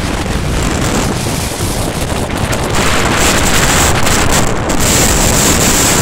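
Strong wind blowing across the phone's microphone, a loud, rumbling rush that grows louder about three seconds in.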